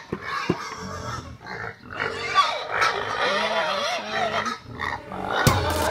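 Domestic pigs grunting in a concrete pen, in short, uneven calls. Electronic dance music with a heavy beat comes in near the end.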